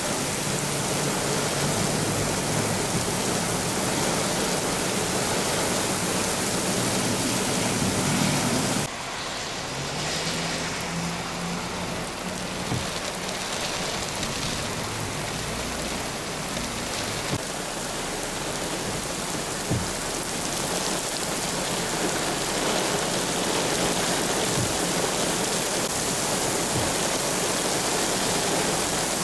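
Torrential rain pouring down in a steady, loud hiss, with a few sharp taps of drops scattered through the second half; the level steps down a little about nine seconds in.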